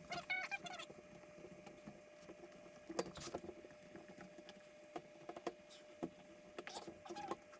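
Faint, scattered taps, clicks and rubbing as a dirt bike tire and inner tube are worked around a spoked rim to seat the tube's valve stem, with a brief squeak in the first second.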